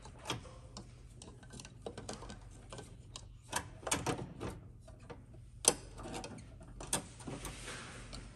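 Plastic air intake tube and blue silicone coupler handled and pushed into place on the engine: irregular clicks, knocks and short scrapes, the sharpest knock about five and a half seconds in.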